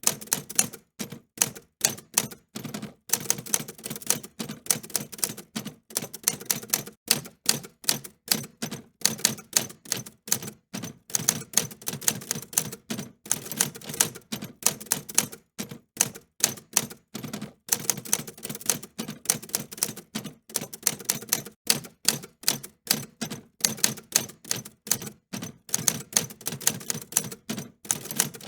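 Typewriter keys being struck in an uneven typing rhythm, several sharp clicks a second with brief pauses between runs.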